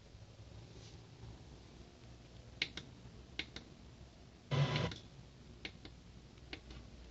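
Scattered sharp clicks and one brief scraping or rustling burst about two thirds of the way in, against faint room tone; no music is playing.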